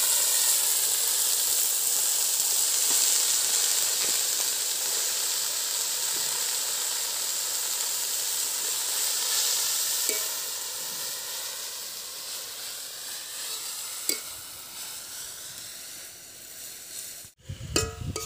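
Freshly chopped taro leaves sizzling in hot mustard oil in a kadai. The hiss is loud at first and slowly dies down, with a few light taps of a metal spatula as they are stirred. Near the end the sizzle cuts off abruptly and sharp clacks of the spatula against the pan follow.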